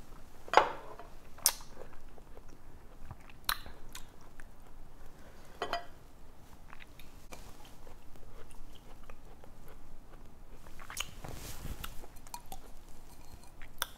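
A person drinking an aloe vera drink from a glass and chewing the aloe pieces, with several sharp clicks along the way, the loudest about half a second in, and a brief rustle near the end.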